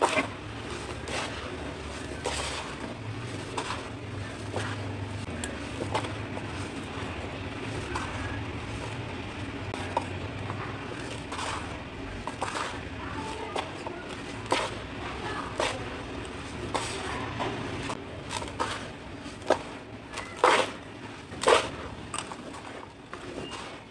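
Hands crumbling and sifting dry, dusty cement chunks: a steady gritty rustle dotted with small crunches. Near the end, handfuls of crumbly concrete pieces are dropped back into the tub with several louder crunches.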